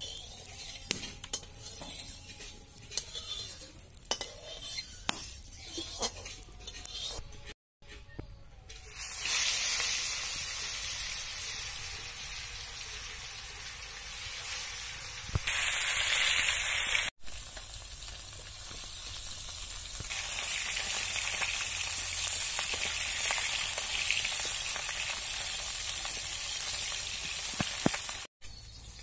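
Fish pieces frying in hot oil in an iron kadai: light clicks and scrapes at first, then from about nine seconds in a loud, steady sizzle, broken twice by short sudden gaps.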